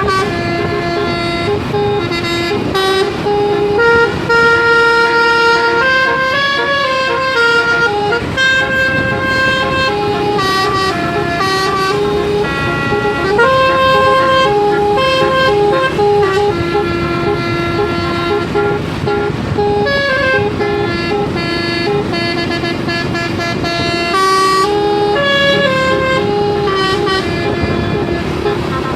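Indonesian bus 'telolet basuri' musical air horn, a 12-note horn set, playing a continuous tune of held notes that change pitch every half second to a second, with a few short bends. A rumble of engine and traffic noise runs underneath.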